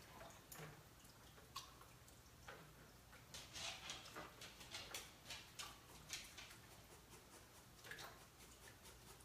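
Faint water splashing and dripping at a kitchen sink as pieces of cooked chicken are rinsed by hand, in scattered short bursts.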